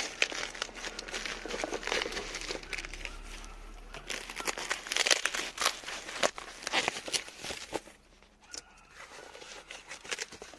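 White foam and plastic packing wrap being handled and pulled open, crinkling and rustling in quick irregular bursts, with a brief lull about eight seconds in.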